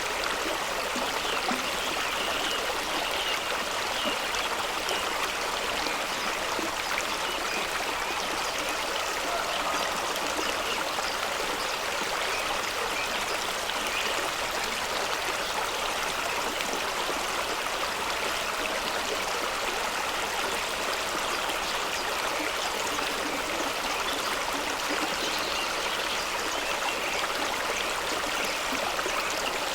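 A fast-running stream pouring over rocks in a small waterfall, with a steady rushing and splashing of water.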